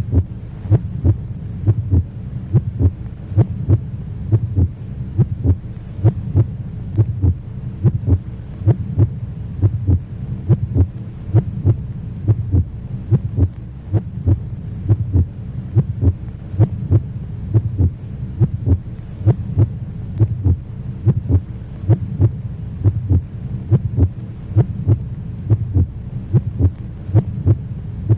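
Heartbeat sound effect: regular, evenly spaced low pulses over a steady low hum.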